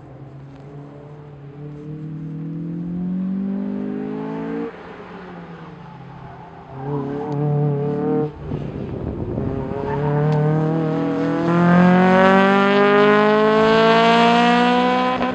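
Honda Civic hatchback's four-cylinder engine pulling hard on an autocross run. The revs climb, fall away about four and a half seconds in, climb again, then rise steadily through the last five seconds, where it is loudest as the car comes close. A short rushing noise comes about eight and a half seconds in.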